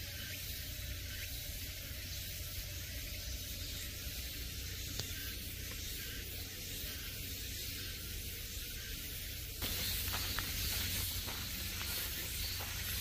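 Steady hiss of outdoor forest ambience. About two-thirds of the way through it jumps to a brighter, slightly louder hiss with faint scattered ticks.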